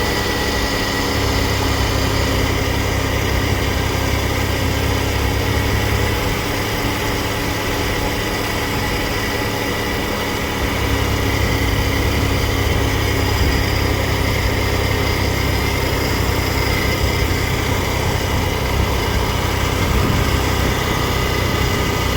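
Car engine idling steadily with the air conditioning running, a thin steady high whine over the engine; it gets slightly louder about eleven seconds in.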